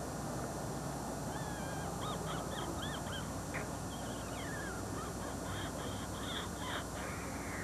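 Birds calling: a run of short, arched chirps over a steady background hiss.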